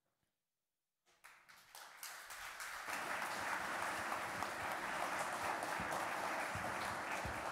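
Audience applause from a seated crowd: after a near-silent first second it starts, swells over the next two seconds and then holds steady.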